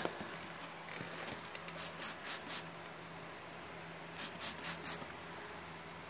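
Short hissing squirts from a hand spray bottle: a run of them between about one and two and a half seconds in, then four quick ones just past four seconds. It is soapy water sprayed on a reseated tire bead to check it for a leak.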